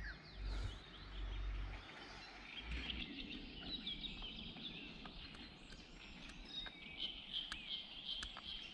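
Birds singing and chirping faintly over a steady outdoor background hiss, with a low rumble in the first couple of seconds.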